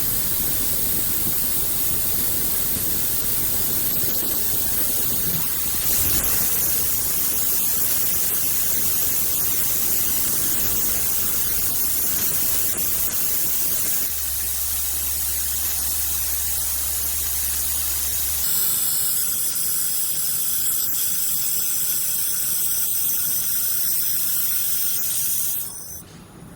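Loud, steady hiss like a jet of gas or air from a multi-function metal-working machine at work. The hiss changes character at a few abrupt cuts, and one stretch in the middle carries a low hum.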